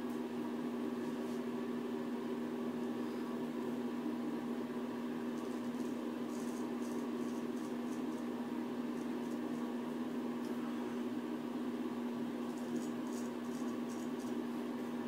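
A steady mechanical hum runs throughout. Over it, a straight razor scrapes through stubble in a few short, faint strokes, about six seconds in and again near the end.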